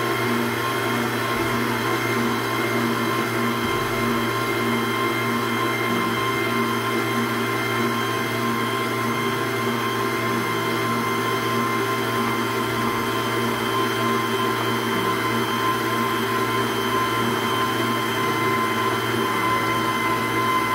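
Electric stand mixer running steadily at a constant speed, its beater turning through thick cake batter of flour, eggs, sugar and oil in a steel bowl.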